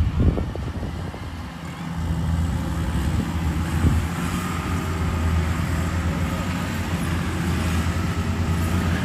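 Rice combine harvester's engine running steadily, a low drone, with a faint higher whine joining about four seconds in.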